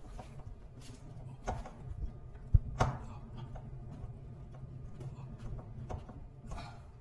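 Hand screwdriver turning screws into a door sensor's plastic mounting brackets: scattered small clicks and scrapes, with a sharp knock about two and a half seconds in. A steady low hum runs underneath.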